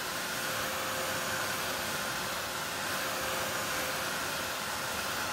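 Handheld craft dryer blowing steadily over wet acrylic paint on card, a rush of air with a faint steady hum. It switches off suddenly at the end.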